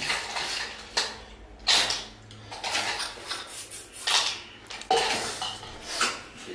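Cooked snails in their shells being eaten from bowls: shells clattering against the bowls and spoon, with short noisy eating sounds about once or twice a second.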